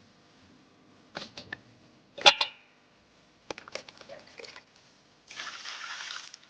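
Kitchen handling sounds while beef shank is being washed: a few knocks and clatters of a bowl and the meat, the loudest about two seconds in, then water running for about a second near the end.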